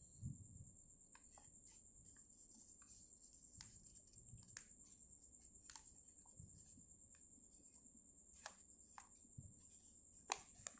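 Faint crackles and clicks of a sheet of origami paper being folded and creased by hand, at irregular moments, with a sharper click near the end.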